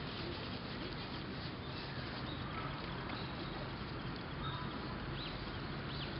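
Steady outdoor background noise with a few faint, short high chirps about four to six seconds in.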